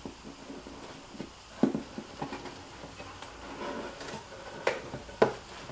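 A few scattered light knocks and taps of hands working inside a cardboard box while string is taped on, with soft handling noise between them.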